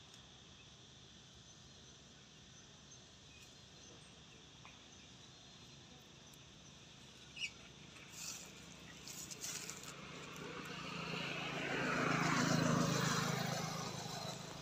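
A motor vehicle passing by: its engine and tyre sound swells from about ten seconds in, peaks, then fades with a falling pitch. Before it, only faint outdoor background with a few small clicks.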